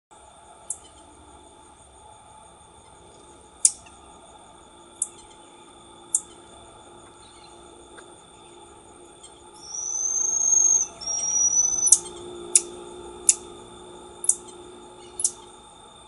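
Black-tufted marmoset calling: short, sharp, high chirps every second or few, and two long whistled calls about ten and eleven seconds in.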